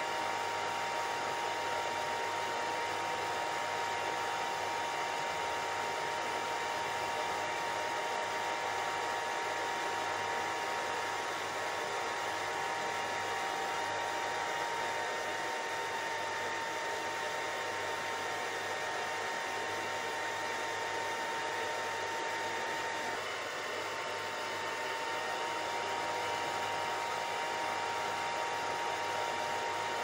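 Steady, unchanging rushing noise with a faint whine running through it, like a hair dryer or fan motor: a continuous white-noise track for sleep and relaxation.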